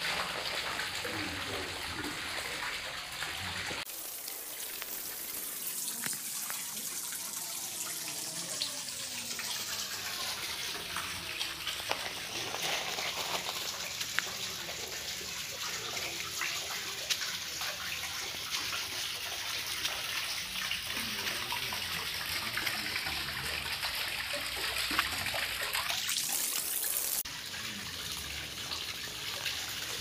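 Water running and trickling into a garden pond, a steady noisy wash; the sound changes abruptly about four seconds in and again near the end.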